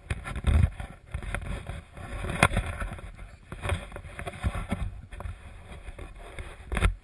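Wind and handling noise on a moving body-worn camera: irregular low rumbling and rustling, with one sharp click about two and a half seconds in.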